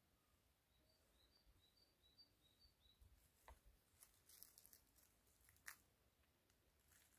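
Near silence, broken by a small bird's faint run of quick, high chirps about a second in, then a few faint clicks.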